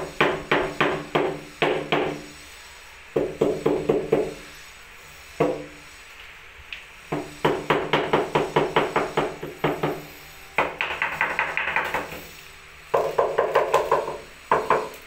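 Ceramic wall tile being tapped into its mortar bed: rapid knocks, about five or six a second, in bursts of one to three seconds with short pauses, each knock ringing briefly.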